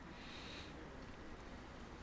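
Faint trickle of water poured in a thin stream from a plastic measuring jug into a well of flour, over low room tone.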